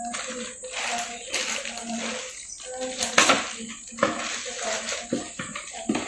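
Clear plastic storage jars with stainless-steel lids handled and set down on a marble floor: scattered knocks and clinks, the loudest about three seconds in, over a steady hiss.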